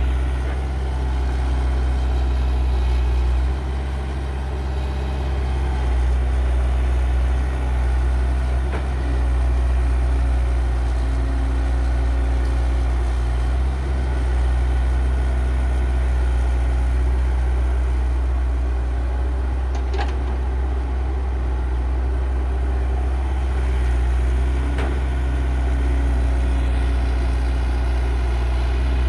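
Heavy diesel engine idling with a steady low drone, with a few faint single clicks over it.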